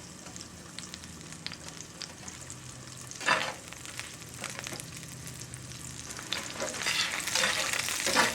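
Butter sizzling in a hot cast-iron skillet, with one short loud burst about three seconds in. From about six seconds in the sizzling grows louder and choppier as chopped cabbage, full of water, goes into the hot pan and is stirred.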